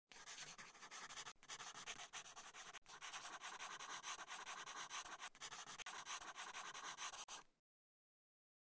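Black marker scratching across paper in quick, uneven strokes, with two brief breaks early on and stopping near the end.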